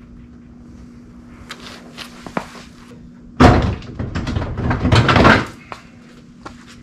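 Stock plastic front bumper of a Jeep Wrangler being yanked free by hand. A few light clicks come first. About three and a half seconds in there is a sudden loud stretch of plastic banging and rattling, lasting about two seconds, as the bumper comes loose after hanging up on its left side.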